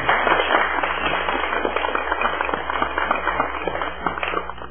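Audience applauding: many hands clapping at once in a dense patter that starts abruptly and dies away near the end.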